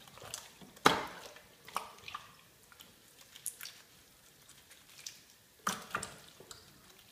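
Raw chicken being rubbed with a wet marinade of vinegar, lemon juice and curry paste by gloved hands in a ceramic bowl: irregular squelches and slaps, the loudest about a second in and another cluster near the end.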